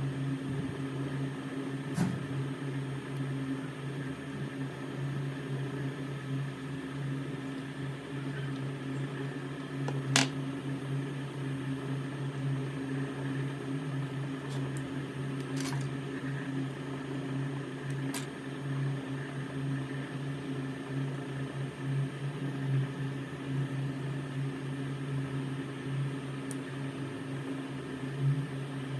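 Steady hum of a small motor, with a handful of sharp clicks; the loudest click comes about ten seconds in.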